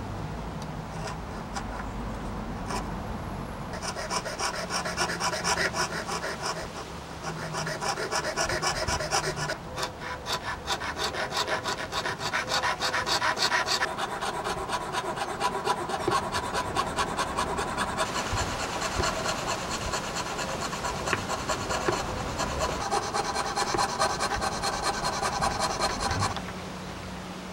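Jeweller's piercing saw cutting thin plywood in quick, even back-and-forth strokes. The sawing picks up about four seconds in, pauses briefly a couple of times, and stops shortly before the end.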